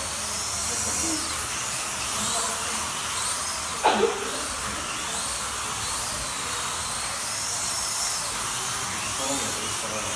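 Slot cars' small electric motors whining at high pitch, the whine rising and falling over and over as the cars speed up and brake around the track. About four seconds in there is one short loud sound that drops in pitch.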